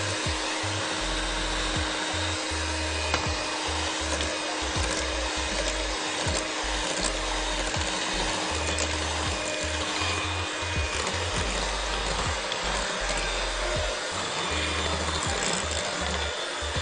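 Electric hand mixer running steadily, its beaters whipping powdered whipped-topping mix and water in a glass bowl into cream, with a few short clicks over the motor's whir.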